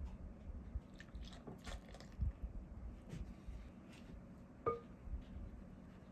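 Silicone spatula stirring dry flour, oats and coconut into melted butter and syrup in a glass bowl: soft, crunchy scrapes and squishes, with one short clink against the glass about three-quarters of the way through.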